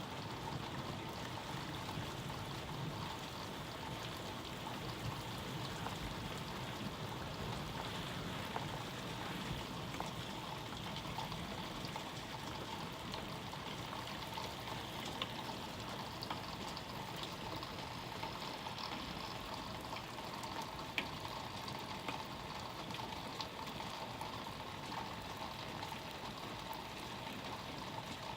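Steady rain falling, with a few sharp drips or ticks standing out now and then.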